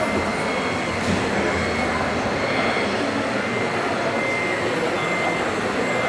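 Steady background babble of a crowded exhibition hall, with a faint high whine that comes and goes.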